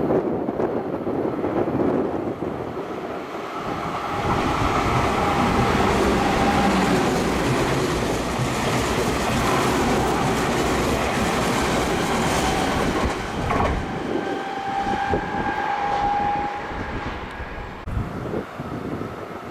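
Meitetsu electric train running through the station without stopping: a loud steady rush of wheel and rail noise with clickety-clack over the rail joints. It builds about four seconds in and fades after about fourteen seconds, with a thin steady whine near the end.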